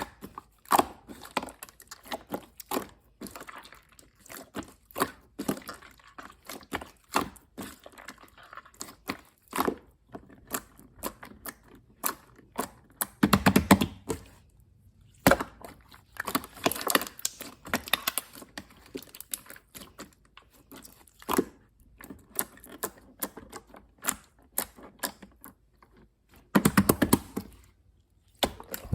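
Sky-blue clear slime being worked by hand, giving irregular sticky clicks and small air-bubble pops, with two runs of rapid crackling, one about halfway through and one near the end.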